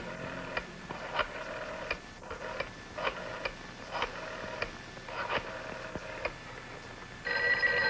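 Steady ticking, somewhat under two ticks a second, each tick followed by a short tone. Near the end a telephone bell starts ringing.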